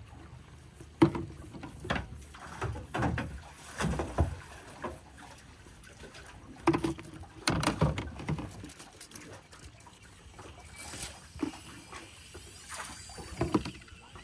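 Water slapping against the hull of a small boat, in irregular splashes and knocks, the loudest about a second in.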